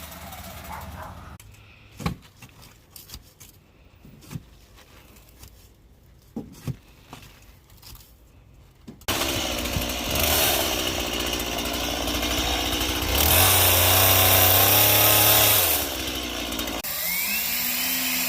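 A few scattered knocks, then a power tool starting about halfway through and running steadily for about eight seconds, loudest for a few seconds near the end.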